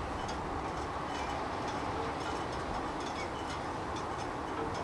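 Steady rushing outdoor background noise with faint scattered ticks.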